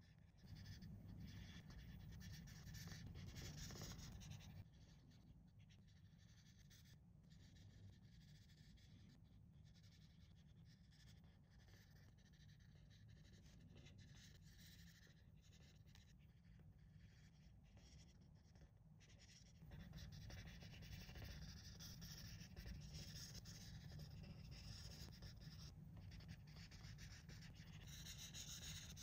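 Crayola Color Wonder felt-tip marker scrubbing back and forth across coloring paper in steady coloring strokes. It is faint, a little louder in the first few seconds and again over the last nine or so.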